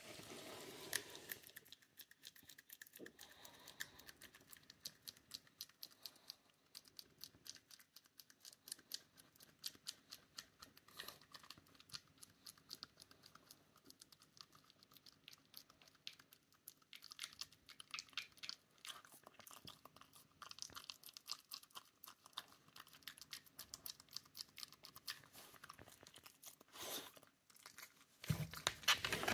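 Shiba Inu nibbling at its own front paw with its front teeth: faint, irregular clicking and crunching of teeth on the paw.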